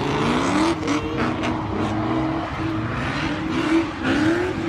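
A drift car's engine revving hard in repeated rising bursts as it is driven around the circuit.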